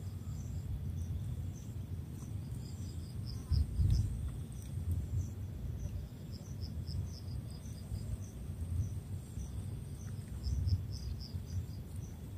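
Insects chirping in quick, evenly repeated high-pitched pulses, over a low rumble that swells briefly about three and a half seconds in.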